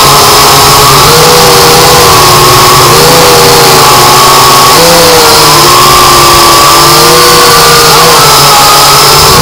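Multirotor drone's electric motors and propellers heard from the onboard camera, a loud whining hum whose pitch rises and falls every second or two as the throttle changes, over a steady high whine.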